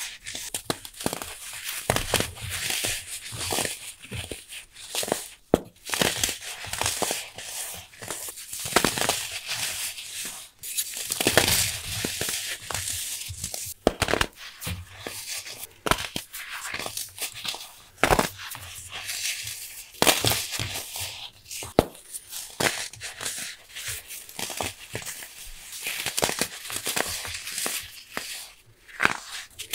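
Dried baking soda bricks being crushed and crumbled between the fingers: continuous crisp, sandy crunching with many sharp little snaps as the chunks break into powder.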